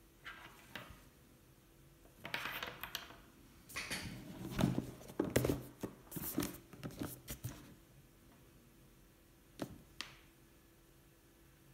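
Handling noises of a laptop and its packaging: scattered rustles, light knocks and clicks over a few seconds, then one sharp click a few seconds later.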